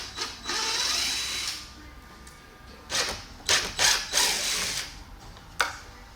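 Power drill running in short bursts, about a second-long run near the start and several quick bursts midway, backing out screws to take the feet off a subwoofer box.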